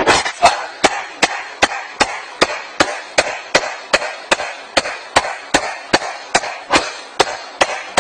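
A hand striking a wooden frame over and over in a steady rhythm, about two and a half sharp knocks a second, with a short brushing sound after each knock.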